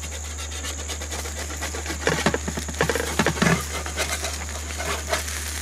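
Eggs fried in slices of bread in a spun-metal camp-oven lid sizzling and crackling in fat over a gas burner, with the metal spatula tongs scraping and knocking against the pan as the toast is turned over, loudest between about two and three and a half seconds in.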